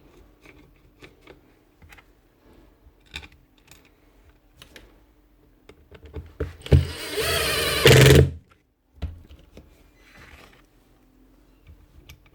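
Light clicks and taps of small sander parts being handled and fitted, then about seven seconds in a loud whirring noise with a wavering pitch for about a second and a half.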